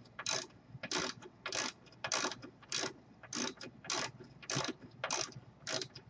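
Socket wrench ratcheting as it is worked back and forth to loosen a bicycle's rear axle nut: a short burst of pawl clicks on each return stroke, nearly two a second.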